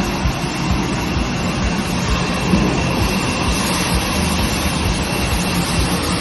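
SINGIP vertical glass washing machine running: a steady mechanical noise with a constant hum and a thin high tone, with irregular low knocks underneath.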